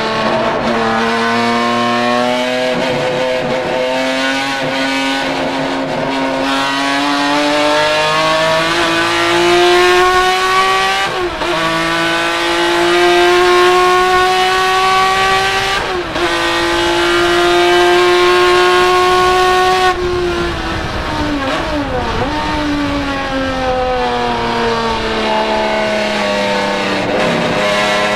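Ford-Cosworth GAA naturally aspirated V6 of a Ford Capri 3100 RS racing car, heard from inside the cockpit at full throttle. The revs climb over the first ten seconds and then hold high, with brief dips about 11 and 16 seconds in. They fall around 20 seconds in, wavering through braking and downshifts, then climb again.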